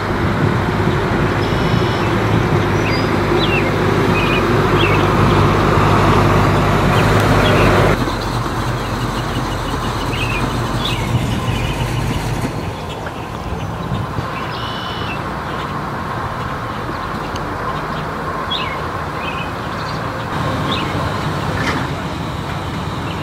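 Engines of vintage cars driving slowly past one after another. A steady low engine note is loudest for the first eight seconds and drops off abruptly there. A quieter engine and road sound follows.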